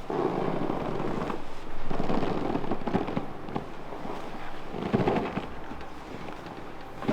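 Hands massaging a person's back and hips, rubbing and pressing in crackly bursts of friction noise with small clicks, strongest at the start, about two seconds in and about five seconds in.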